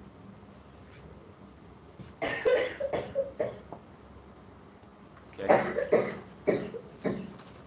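A person coughing in two short fits of several coughs each, the first about two seconds in and the second about five and a half seconds in.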